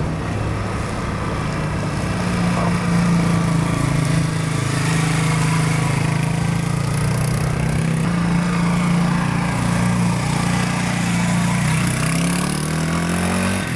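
Irbis VJ 250 motorcycle engine running steadily while the bike is ridden at low speed, an even, loud engine note with no music; the pitch shifts near the end.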